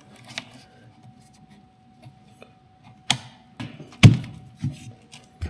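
Key and battery lock on a Lectric XP 3.0 e-bike being worked, giving a few scattered sharp clicks and knocks, the loudest about four seconds in.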